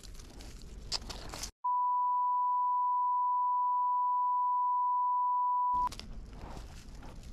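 A steady single-pitch censor bleep, about four seconds long, that starts and stops abruptly and masks a run of swearing. Before and after it, a plastic bag and dry leaf litter rustle and crunch as charcoal is gathered by hand.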